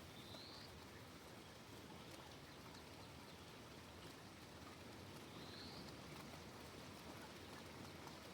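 Faint, steady patter of light rain with scattered small drop ticks. Twice, about half a second and five and a half seconds in, a short high rising chirp sounds over it.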